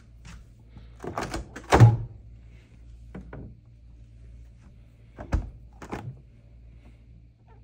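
A series of short knocks and thumps, a cluster about a second in, the loudest just before two seconds, and a few more later, over a steady low hum.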